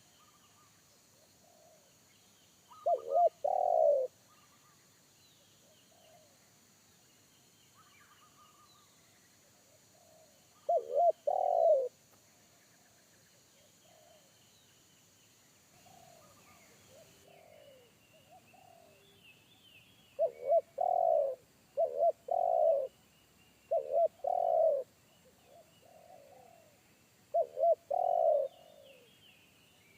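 Spotted doves cooing: about six loud phrases, each two short notes followed by a longer drawn-out one, with fainter answering coos in between. Small birds chirp faintly in the background.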